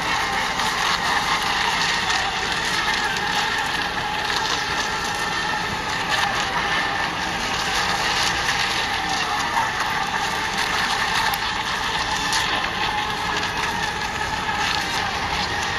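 Several electric ECO Mini class radio-controlled racing boats running at speed around the course, giving a steady mix of high motor whine and hiss.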